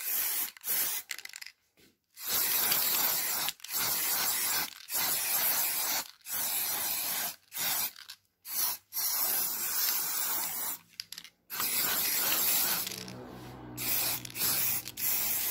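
Aerosol spray paint can spraying in a run of short bursts about a second long with brief pauses between them, laying a second coat of white paint on a metal vent grille. The spraying is softer near the end.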